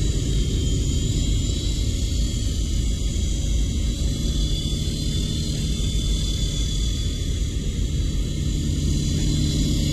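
Esky Big Lama coaxial electric RC helicopter in flight: its two stacked rotors and motors give a steady whirring hum with a high whine over it.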